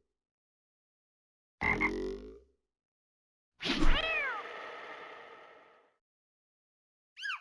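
Farm animal sound effects played one after another: a short animal call about two seconds in, then a louder call with a rising-and-falling pitch and a long echoing tail, and a brief high chirp near the end.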